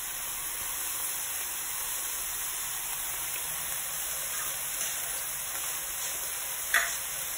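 Steady sizzling hiss from a pot of vegetables and chicken sautéing in olive oil on medium heat, with a short tap near the end.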